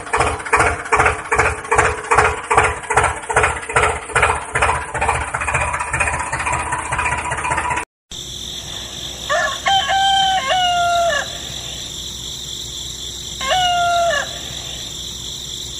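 An engine running with an even, slow beat, about two or three pulses a second, which cuts off abruptly about eight seconds in. Then a rooster crows twice over a steady background hum.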